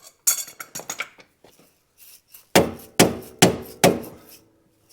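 A short clatter of metal on metal, then four hammer blows on metal, each ringing briefly.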